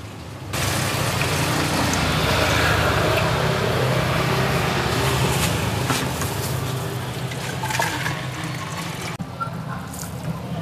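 Water pouring in a steady rush from a plastic measuring jug into an aluminium cooking pot, then running from a large gallon water bottle into the jug, easing off near the end.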